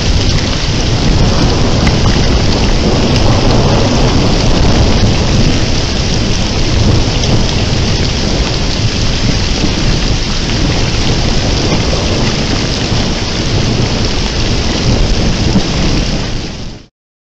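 Heavy thunderstorm: rain pouring down steadily with a continuous low rumble of thunder underneath, cutting off suddenly near the end.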